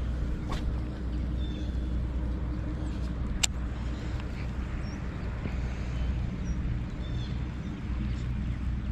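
A steady low mechanical hum, like a running engine, with a couple of sharp clicks, the louder one about three and a half seconds in.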